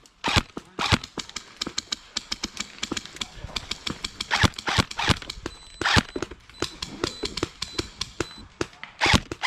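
Airsoft guns firing, sharp cracks in quick irregular strings and single shots, several a second, with a few louder shots about four and a half, six and nine seconds in.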